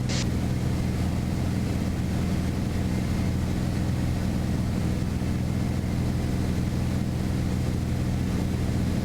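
Beechcraft Bonanza's single piston engine and propeller running in flight, a steady low drone with no change in power.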